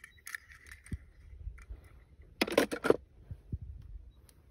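Faint scattered clicks and a few soft low knocks, with a short pitched sound about two and a half seconds in.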